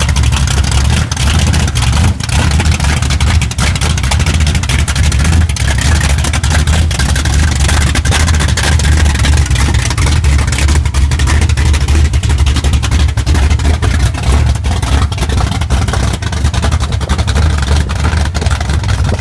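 Mustang drag car's engine running loudly and steadily, with a deep exhaust note.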